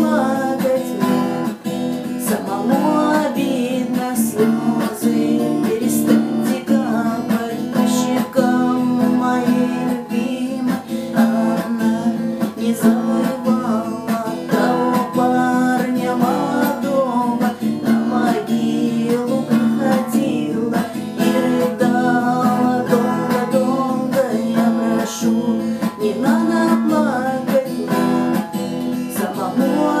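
A woman singing a Russian army song while strumming chords on an acoustic guitar.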